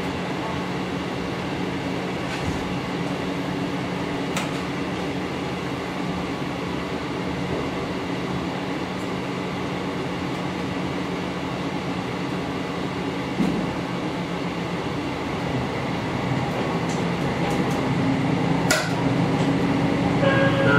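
KiHa 54 diesel railcar's engine idling with a steady low hum, heard from inside the car, with a few faint clicks and a knock about two-thirds of the way through. Near the end the engine speeds up, rising in pitch and loudness, as the car starts to pull away.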